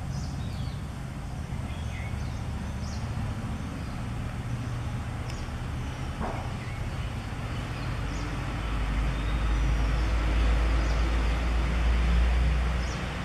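Steady low traffic rumble that swells as a vehicle passes about two-thirds of the way through, with faint short high bird chirps now and then.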